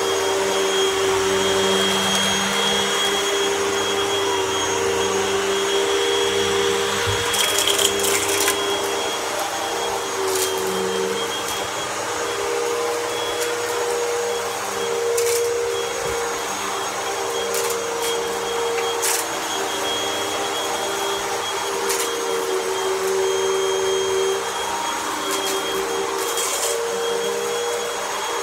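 Vacuum cleaner running steadily with a constant motor whine, with scattered light crunches and clicks of debris being sucked up.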